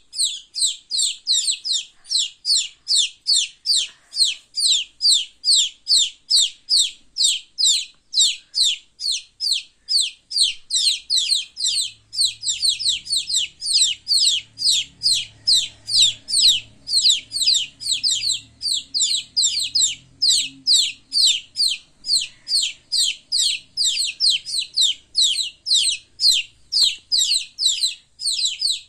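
Baby chicks peeping: a continuous, evenly spaced run of short high peeps, about three a second.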